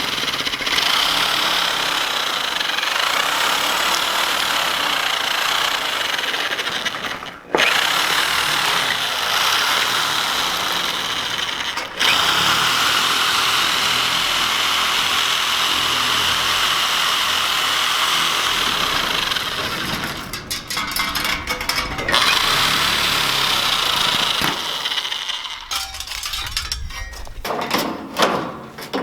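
A power tool cutting sheet-metal siding, running steadily in long stretches and breaking off abruptly twice. Near the end it gives way to uneven clattering and knocks.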